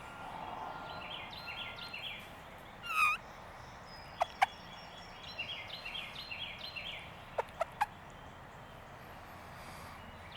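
Wild turkey gobbling twice, each gobble a rapid rattling call of about a second, with short sharp calls of other birds in between.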